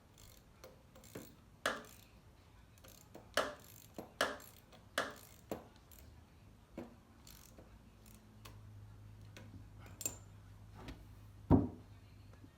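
Irregular metallic clicks and knocks of hand tools and loose parts being handled while a lawn mower engine is worked on, the loudest knock near the end.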